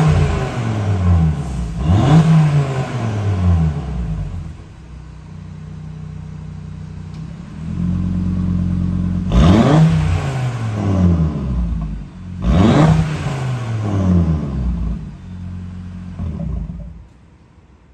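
A 2023 Audi RS3 8Y's turbocharged five-cylinder engine, breathing through an AWE SwitchPath cat-back exhaust, idling and sharply revved four times while parked, each rev climbing quickly and falling back to idle. The idle grows louder about eight seconds in, and the sound fades away near the end.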